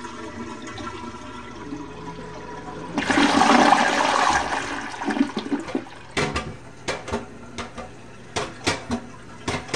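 AquaSource dual-flush toilet flushing. The rush of water is loudest about three seconds in, then fades to running and trickling water broken by many short, sharp splashes.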